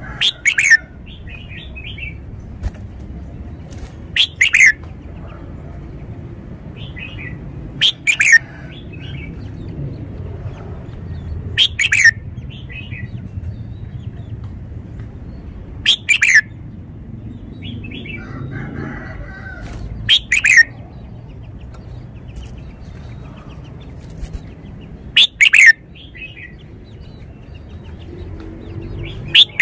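Red-whiskered bulbul singing: short, loud, clear phrases that sweep down in pitch, repeated about every four seconds, with softer twittering notes between them.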